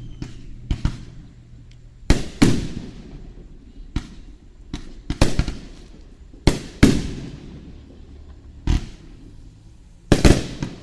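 Aerial fireworks shells bursting overhead: a string of sharp bangs every second or so, several in quick pairs, each trailing off in a rolling echo. A tight cluster of bursts comes near the end.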